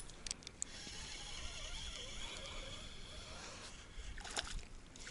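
Spinning reel being cranked to reel in a hooked small pike that gives little resistance: a faint, steady whir of the reel, with a few clicks near the start and a short louder scrape about four seconds in.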